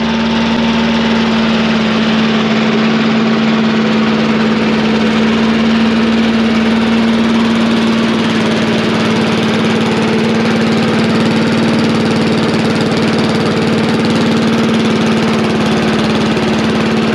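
Tecumseh TVS90 single-cylinder four-stroke engine on a push lawn mower, running at a steady speed with an even, unchanging tone.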